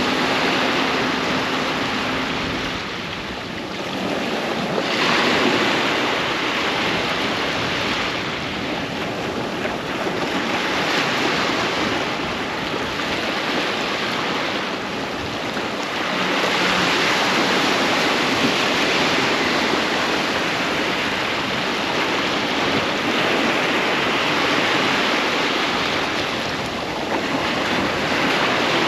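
Sea waves breaking and washing up a sandy beach, the surf swelling and easing every few seconds, with some wind buffeting the microphone.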